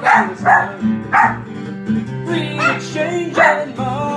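Small dog barking along to strummed acoustic guitar chords, about two barks a second, several of them drawn out with a wavering pitch.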